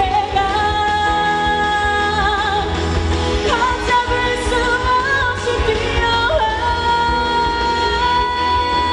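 A female pop singer sings live into a handheld microphone over a loud band backing with heavy bass. She sustains several notes with vibrato, ending on one long held note.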